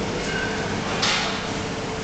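Steady hum of workshop machinery, with a short hiss about a second in.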